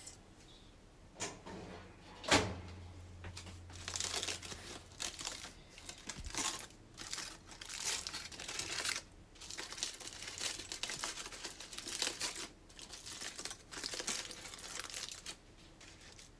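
Aluminium foil crinkling and rustling in irregular bursts as it is unwrapped by hand from a whole roasted onion, with a single sharp knock about two seconds in.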